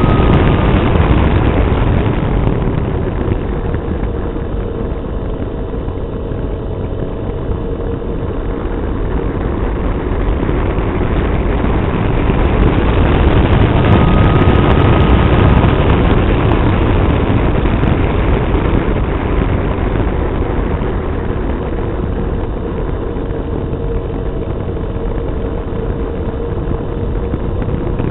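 Wind rushing over the onboard camera of a flying RC Floater Jet foam plane, with the faint steady whine of its motor and propeller underneath. The rush swells and fades twice as the plane's speed changes.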